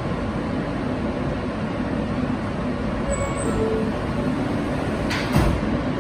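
Subway car doors sliding closed and shutting with a thud about five seconds in, over the steady hum of the stopped train.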